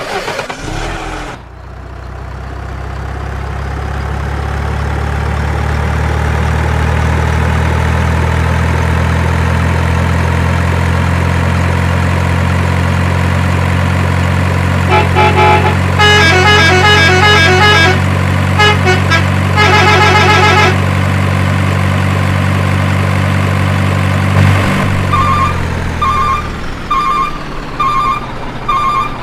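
Heavy truck engine running steadily, then cutting off about 25 seconds in. A multi-tone horn plays in quick changing patterns about halfway through. Evenly spaced reversing beeps follow near the end, about one to two per second.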